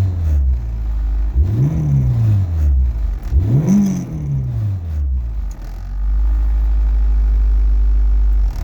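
1995 Nissan 240SX's stock KA24DE 2.4-litre four-cylinder engine being revved twice, each rev rising and dying back, then settling to a steady idle that cuts off sharply near the end.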